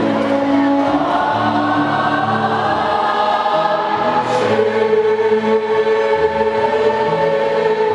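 School choir singing in harmony, several voice parts holding long notes and moving together from chord to chord.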